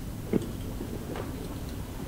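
A few irregular light knocks or taps over steady low room noise. The sharpest comes about a third of a second in and a softer one a little after one second.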